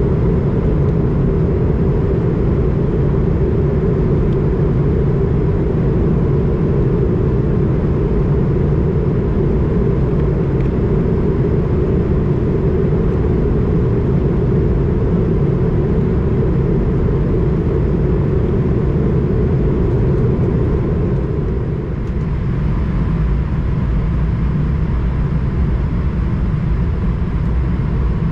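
Airbus A220 cabin noise in descent, heard from a window seat by the wing: a steady low rush of airflow and Pratt & Whitney PW1500G geared-turbofan engine noise. It dips slightly about three-quarters of the way through.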